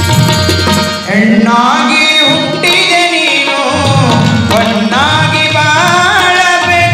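Kannada folk song: a man singing a melodic line over tabla accompaniment, the tabla's deep strokes running underneath. The voice enters about a second in after a short drum passage.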